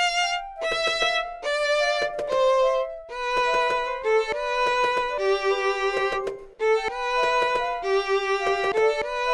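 Instrumental music: a violin playing a melody of held notes in short phrases, with brief breaks between phrases.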